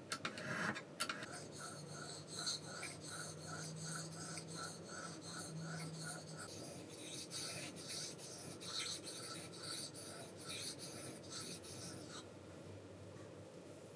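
Steel knife blade being worked by hand in quick back-and-forth abrasive strokes, about three a second, a rasping scrape that stops about two seconds before the end.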